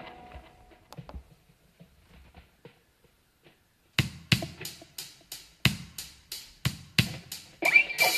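An electric guitar note rings and fades out in the first second. After that it is nearly quiet with a few faint clicks, until a drum backing beat starts about four seconds in, with sharp hits about three a second.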